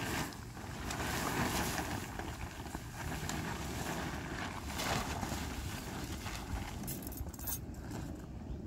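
Wind buffeting the microphone with a steady, irregular rumble, over which nylon tent fabric rustles in a few brief swishes as a pop-up tent is handled and shaped.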